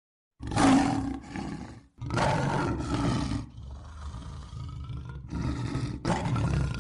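A recorded animal roar sound effect played back: three long roars, the first two back to back, with a quieter stretch between the second and third.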